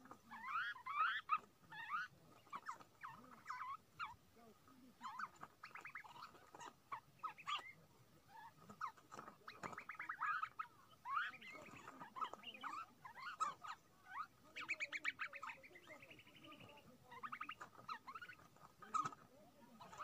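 A flock of small birds calling: many short, overlapping chirps and chattering calls, loudest about a second in.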